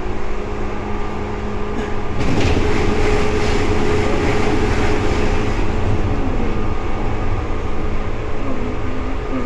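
Running noise of a Seibu 2000 series electric train, heard inside the car. A steady equipment hum at first, then about two seconds in the noise suddenly jumps louder and stays up.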